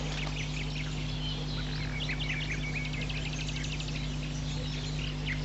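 Small birds chirping in quick, repeated calls, busiest about two seconds in, over a steady low hum.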